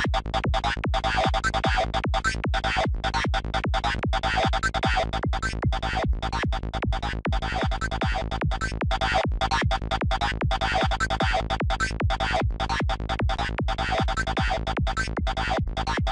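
NI Massive software synthesizer playing a dark, FM-like psytrance lead: a fast, evenly repeating run of short chopped notes at 150 BPM, over a steady low bass tone.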